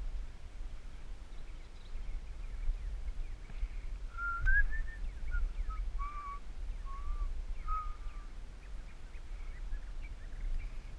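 Wind rumbling on the microphone of a moving bicycle. In the middle come several short, high whistling notes, some sliding up or down.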